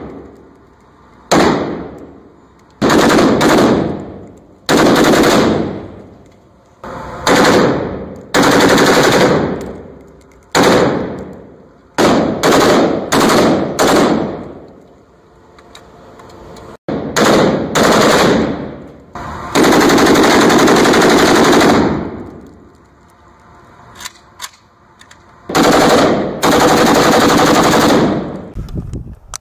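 AKS-74U carbine in 5.45×39 mm firing full-auto bursts, about a dozen in all, mostly short, with one longer burst of about two and a half seconds about two-thirds of the way through. Each burst echoes off the walls of an indoor range and fades between bursts.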